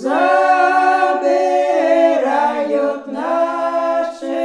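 Women's folk singing group singing a traditional Podlasie village song unaccompanied, several voices in harmony drawing out long held notes. The voices come in together at the start, ease off briefly, and swell again about three seconds in.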